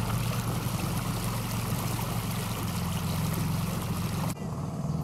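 A boat's motor running steadily, a low hum under the hiss of water and wind. About four seconds in the hiss cuts off abruptly while a lower hum carries on.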